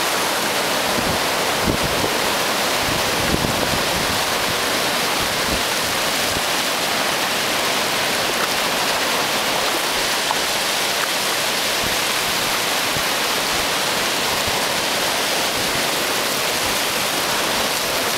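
Surf breaking and foaming over shallow sand: a steady, even rush of water with no pause.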